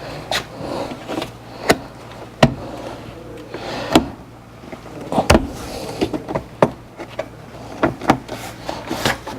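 Plastic car interior trim being handled and pressed into place: a series of irregular sharp clicks and knocks with some rubbing and rustling between them.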